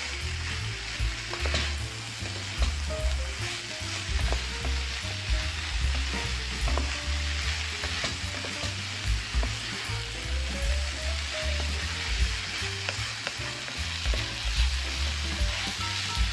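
Shredded carrots frying and sizzling in a pot as they are stirred, with scattered small clicks of the utensil against the pot. Background music with a bass line plays underneath.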